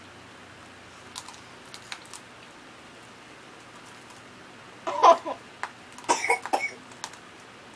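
A few faint crunching clicks of chewing pretzels about one and two seconds in, then two clusters of short, muffled spluttering vocal bursts through a mouth full of pretzels, about five and six seconds in, as the whistle fails to come.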